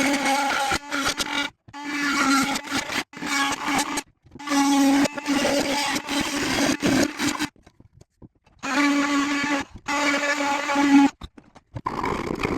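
A small electric motor, such as a power tool, running with a steady hum-whine. It comes in several short runs of one to three seconds, each cut off suddenly.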